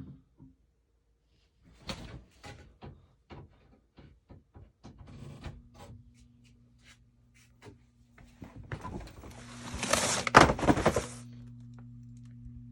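Refrigerator: its loud hum cuts out, followed by a series of knocks and clicks. A steady low hum comes back on about five and a half seconds in, and a loud clattering thunk comes about ten seconds in.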